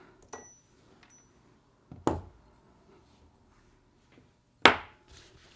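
Small metal knife parts and tools clinking and being set down on a work surface: two light metallic clinks with a short ring, then a knock about two seconds in and a louder knock near the end.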